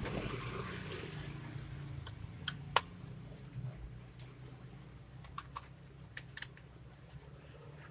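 Small, irregular clicks and taps of plastic and metal parts being handled during the disassembly of a Lenovo G470 laptop, with the loudest click near the middle. A steady low hum runs underneath.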